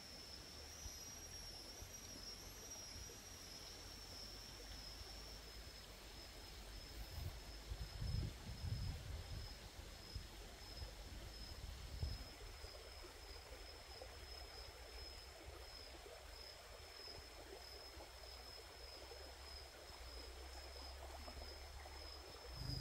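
Quiet forest ambience: a steady high-pitched insect drone over a low rumble of wind, with a few soft low bumps about eight seconds in.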